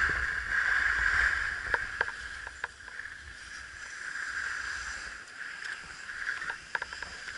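Skis sliding over packed snow with a steady hiss, and wind rumbling on the microphone. It is louder for the first couple of seconds, then softer, with a few sharp clicks.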